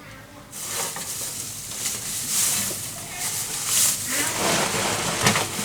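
Food sizzling in hot oil in a pan, starting suddenly about half a second in and carrying on with swells of hiss, with a few knocks near the end.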